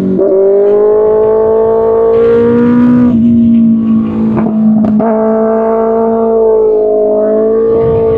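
Kawasaki Ninja ZX-6R's 636 cc inline-four running hard through an Arrow Pro Race exhaust, loud throughout. The engine pitch jumps up sharply at the start and again about five seconds in, drops about three seconds in, and shifts again near the end, as the revs change through gear changes.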